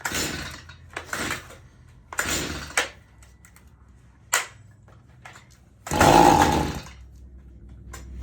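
Stihl MS 162 chainsaw being pull-started over and over: a string of quick recoil-starter cord pulls about a second apart, the last two longer and louder. The saw does not run, which the owner takes for hydrolock after water was sprayed into the intake.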